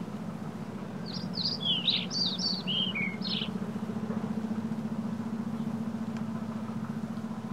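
A songbird sings one quick phrase of short, sliding high notes, starting about a second in and lasting about two and a half seconds. Under it runs a steady low motor hum.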